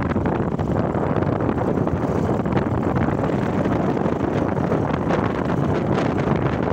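Steady wind noise buffeting the microphone on a moving motorcycle, mixed with the bike's running and road noise.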